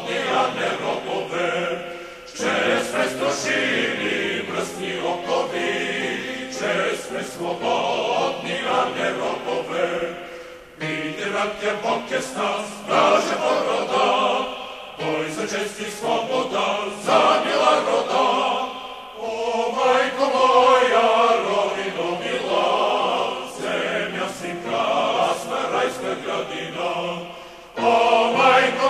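Choral music: a choir singing in long phrases, broken by a few brief pauses.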